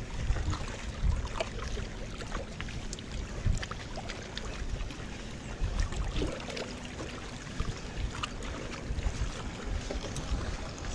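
Wind buffeting the microphone over water washing against breakwater rocks, with scattered small clicks.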